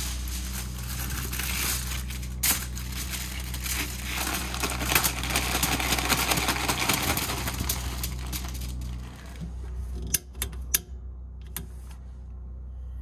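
Aluminium foil crinkling as it is pulled off the roll and pressed over a baking sheet, then frozen vegetables poured rattling onto it. A few sharp knocks come near the end.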